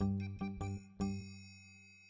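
Closing background music: a few short pitched notes over a bass note, the last one, about a second in, ringing on and fading out.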